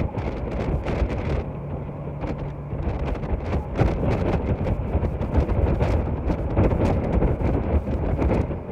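Wind buffeting the microphone on a moving boat, over the low rumble of the boat under way. A faint steady hum comes through for about a second, starting about a second and a half in.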